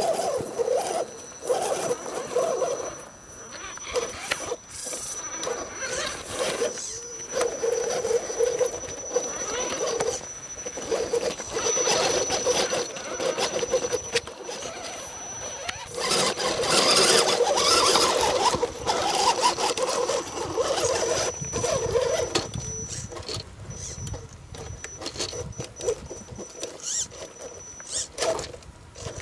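Electric motor and gearbox of a scale RC rock crawler whining in stop-start throttle bursts as it climbs a steep rock crack, its tyres scraping and scrabbling on the rock. A thin high steady whine runs beneath, and the scrabbling is loudest a little past halfway.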